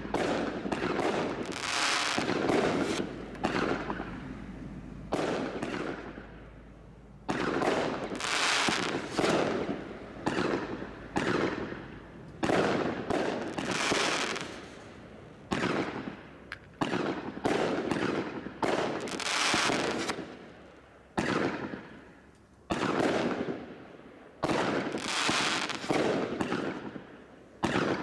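Consumer fireworks from a barrage selection pack firing in quick succession: a long run of sharp bangs, one or two a second, each trailing off over a second or so before the next.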